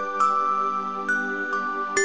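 Background music: a gentle new-age tune of softly struck, ringing notes, about two a second, over a held low tone.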